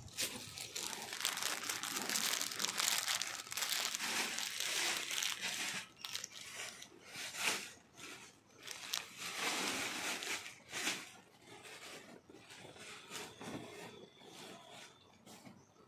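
Disposable white protective coverall crinkling and rustling as it is stepped into and pulled up over clothes. The rustle is busiest for the first ten seconds or so, then goes on more faintly as the suit is drawn up over the arms.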